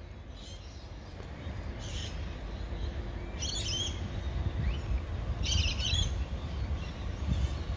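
Birds chirping in short separate bursts, four or five calls spread over several seconds, the loudest two just before and just after the middle. Beneath them a low rumble slowly grows louder.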